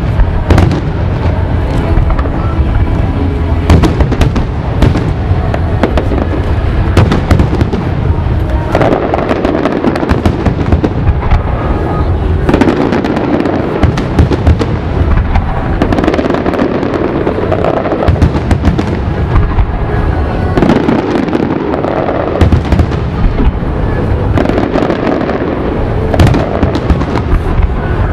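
Aerial fireworks shells bursting in a dense, continuous barrage of loud booms, several a second and overlapping.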